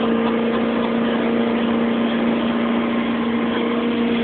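Motorboat engine running fast, a steady, even drone.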